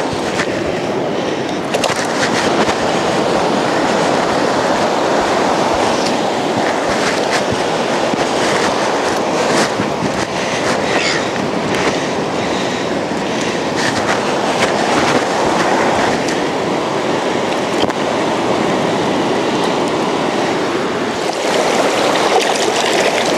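Surf washing onto a beach: a loud, steady rushing noise with scattered short crackles through it.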